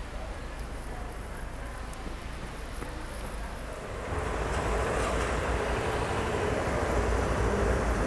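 Street ambience of road traffic: a steady rumble and hiss of engines and tyres, getting louder about halfway through.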